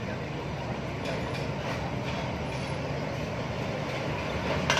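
Steady rumble of many motorbikes and scooters riding off a ferry's loading ramp, their small engines running together as they come ashore. There is a sharp click near the end.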